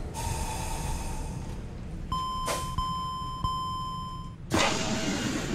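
Electronic chime tones over a low steady rumble: a plain tone in the first second, then a brighter beep that pulses about three times. A rush of hiss starts near the end.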